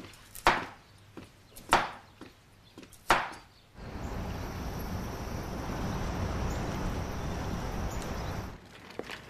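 Three chops of a Chinese cleaver through a tomato onto a wooden cutting board, about a second and a half apart. About four seconds in, a steady rushing outdoor ambience takes over for about five seconds, then drops away near the end.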